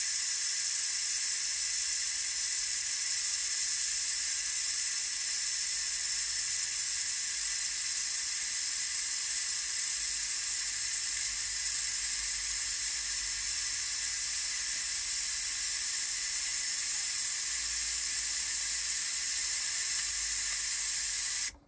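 Ninja Foodi pressure cooker's release valve venting steam in a steady, loud hiss as the pressure is released manually after cooking. The hiss cuts off abruptly near the end.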